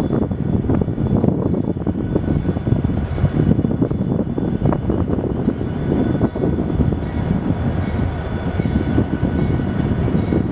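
Amtrak GE P40DC diesel locomotive approaching from a distance, a steady low rumble with a constantly fluttering roar.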